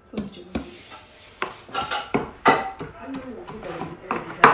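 Wooden pestle pounding in a wooden mortar: irregular thuds about once a second.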